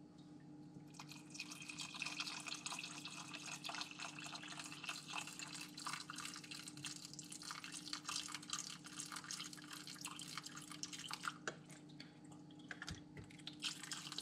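Chicken broth poured from a carton in a steady stream into a saucepan of green beans and butter, splashing faintly. It softens a little near the end.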